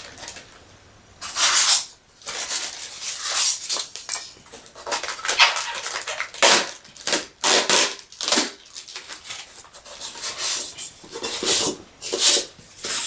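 Packaging being rustled and handled while a diecast model is unpacked: a quiet first second, then a long run of irregular rustling bursts of different lengths.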